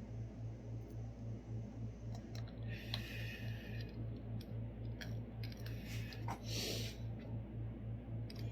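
A low hum pulsing about four times a second runs throughout, with scattered clicks and two short scraping, rustling noises about three and six and a half seconds in, as scooter parts and tools are handled during reassembly.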